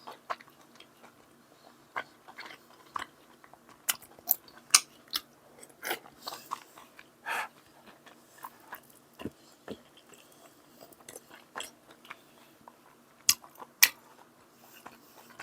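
A person eating: chewing and crunching close to the microphone, with irregular sharp clicks and knocks spread throughout, two of the loudest near the end.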